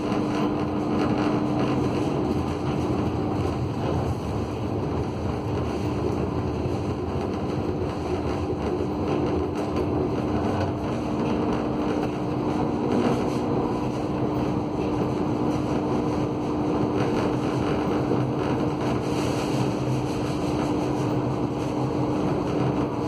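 Kassel tram running at a steady pace: an even rumble with a steady hum over it.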